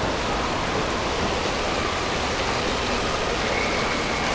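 Steady rush of falling and splashing water in an indoor water park.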